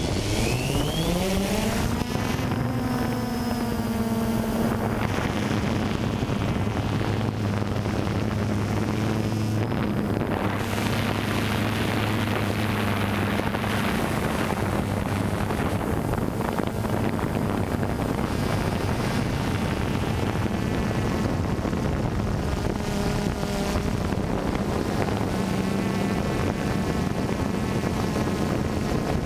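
DJI Phantom 2 quadcopter's electric motors and propellers spooling up with a rising whine in the first two seconds as it lifts off, then a steady buzzing hum with rushing prop wash as it climbs and flies. It is heard close up from the drone's own onboard camera.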